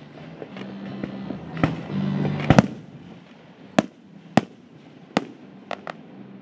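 Aerial fireworks shells bursting: a build of crackle leading to a quick cluster of loud bangs about two and a half seconds in, then single sharp bangs about a second apart and a quick pair near the end.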